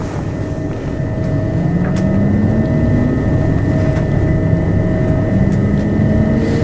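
c2c electric train's traction motors whining and rising in pitch as the train accelerates, over a steady rumble of running gear.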